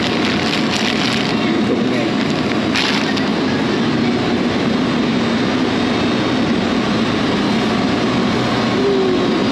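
Steady rumble of a vehicle on the move, with a few brief rattles or crackles near the start and about three seconds in.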